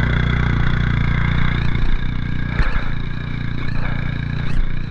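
Honda Dio scooter's small single-cylinder engine running steadily, with a few short knocks and rattles scattered through.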